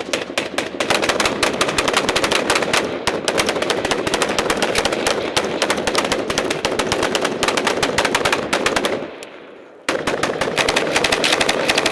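Machine gun firing long, continuous automatic bursts at close range, with a break of about a second near the end before the firing starts again.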